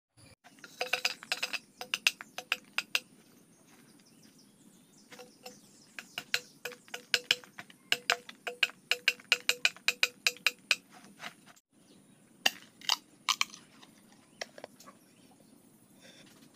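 A large knife chopping into a green bamboo pole at a node: sharp knocks in bursts, a fast run of about four blows a second in the middle, with pauses between bursts.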